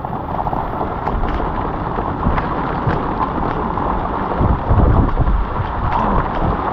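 Wind buffeting the microphone and rain falling on an open boat in a thunderstorm: a steady rushing noise with faint ticks of drops, swelling into a louder low rumble about four and a half seconds in.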